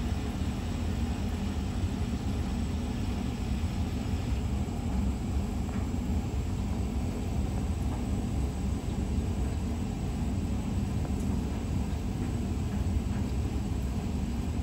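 A steady low rumble with a faint hiss above it, unchanging, with no distinct events.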